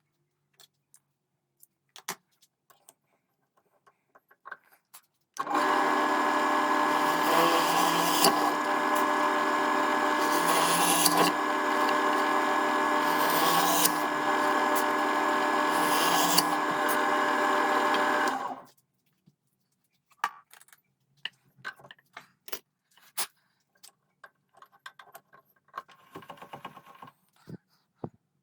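Electric drill running steadily for about 13 seconds, drilling holes in resin-faced wooden plates, with brief surges every few seconds before it stops abruptly. Light clicks and handling of tools and parts come before and after.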